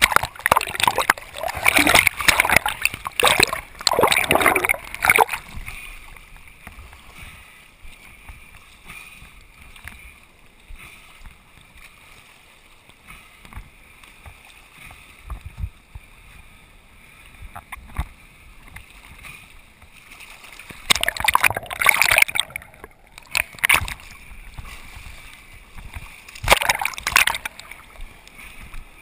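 Sea water splashing and sloshing around a waterproof action camera held at the waterline, dipping in and out of the waves. Loud bursts of splashing run through the first few seconds and come back twice near the end, with a quieter muffled wash between.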